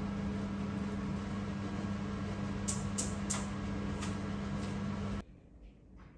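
Steady hum of a running kitchen appliance or fan, with a few light clicks about three seconds in. The hum cuts off sharply about five seconds in, leaving quiet room tone.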